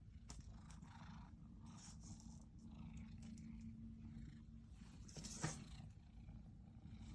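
A pet purring: a low, steady rumble close to the microphone, with a few faint clicks and one sharper click about five and a half seconds in.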